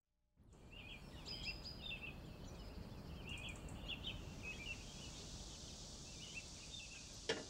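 Outdoor ambience fading in from silence: small birds chirping again and again over a low steady background. A single sharp knock comes just before the end.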